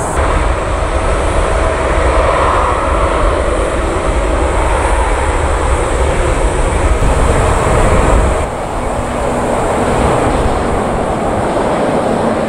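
Jet airliner engines heard from the ground on approach: a Boeing 747-400 freighter's steady rumble. About eight and a half seconds in, an abrupt cut switches to a Boeing 777 approaching, a little quieter at first.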